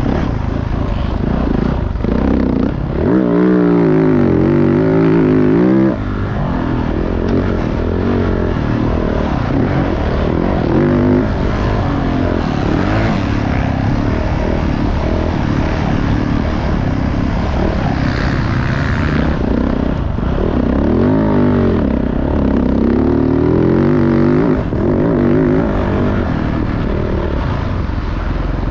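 Motocross dirt bike engine running hard, its pitch repeatedly climbing as the throttle opens and dropping between bursts, with the strongest rises about three seconds in and again about two-thirds of the way through.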